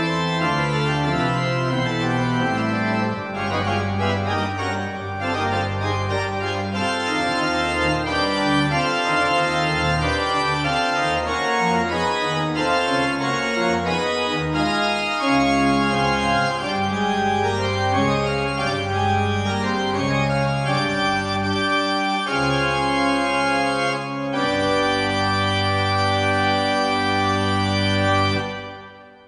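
Church organ played on manuals and pedals: full sustained chords over a deep pedal bass. It ends on a long held final chord that stops shortly before the end.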